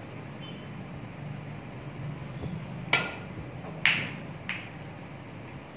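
A snooker shot: the sharp click of the cue tip striking the cue ball about three seconds in, then a second loud crack a second later as the cue ball hits the object ball, followed by a lighter knock half a second after. A low steady hum runs underneath.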